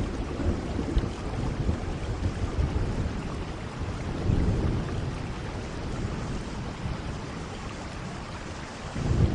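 Steady rain with low rolls of thunder, swelling about four seconds in and again near the end.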